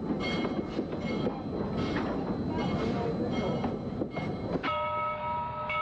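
A train running with a dense rumbling, rattling noise. About four and a half seconds in, it cuts suddenly to a steady horn chord of several held notes.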